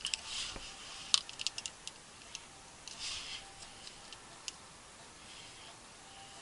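Scattered light clicks and short rustles from small brake parts being handled by hand, with a quick run of clicks a little over a second in.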